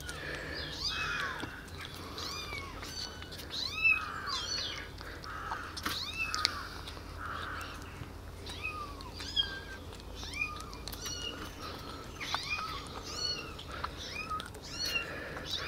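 Baby kittens mewing over and over in short, high, rising-and-falling cries, several a second at times.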